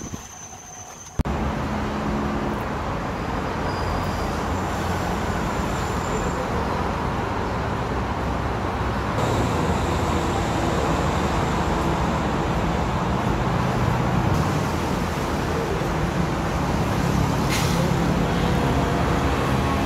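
Busy multi-lane highway traffic: a steady wash of tyre and engine noise from passing cars, vans and trucks, starting abruptly about a second in.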